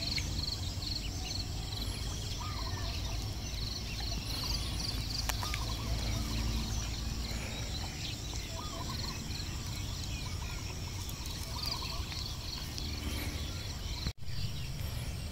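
Rural outdoor ambience: insects chirring in fast pulses, short bird calls now and then, and a steady low rumble. The sound drops out for an instant near the end.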